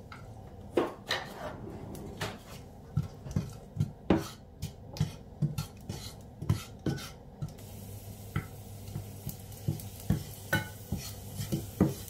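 Wooden spatula knocking and scraping in a non-stick frying pan while stirring garlic cloves in hot rapeseed oil, with repeated short knocks over a faint sizzle of the frying garlic.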